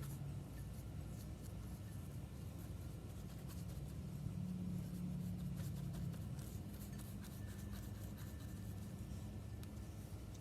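A brush spreading liquid wood hardener onto a sanded, rotted wooden window frame: light scratchy rubbing strokes over a steady low hum.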